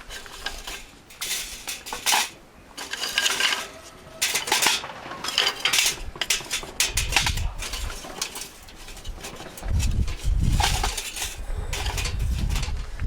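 Irregular metal clinking and rustling from handling things at a wood stove while the fire is being laid and lit. Wind rumbles on the microphone about seven seconds in and again for the last few seconds.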